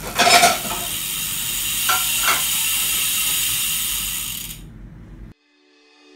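Bicycle drivetrain spun by hand: the chain runs over the newly fitted chainring and rear cassette in a steady whir, with a few clicks, for about four seconds, then cuts off suddenly. Faint music follows near the end.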